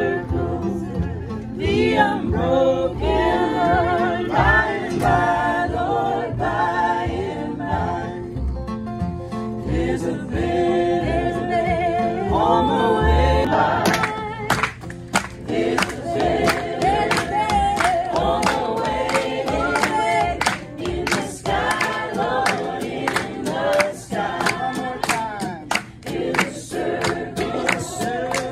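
A group of voices singing in harmony over acoustic guitar and upright bass. About halfway through, the bass and guitar drop out, leaving the voices singing a cappella with rhythmic hand claps keeping time.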